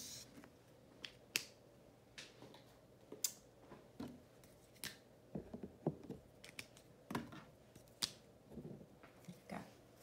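Faint, scattered sharp clicks and taps, a dozen or so over several seconds, with a few short squeaks in the middle: hands handling a marker and chart paper.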